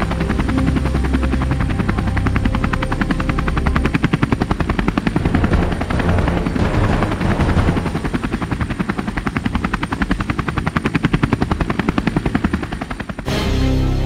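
Helicopter rotor, a fast steady chop of the blades, giving way to soft music near the end.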